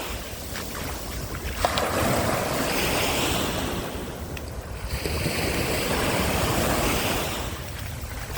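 Small sea waves breaking and washing up the beach, the surf swelling twice and falling back between, with wind rumbling on the microphone.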